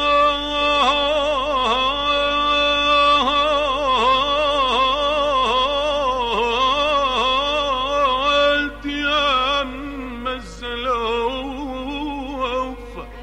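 Arabic classical singing: a single voice holds a long note, then winds through quick ornamented turns with a wide vibrato. It grows quieter past the middle.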